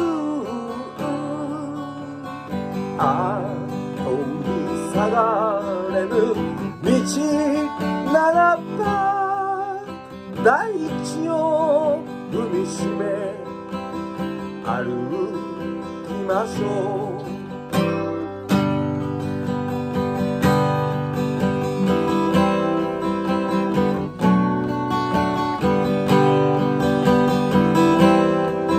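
Steel-string acoustic guitar strummed in steady chords, with a man singing over it for about the first two-thirds; from about 18 seconds in, the guitar plays on alone.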